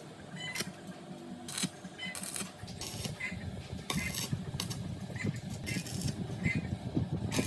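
Metal tools and parts clinking and scraping in irregular short strikes, with a low clatter underneath.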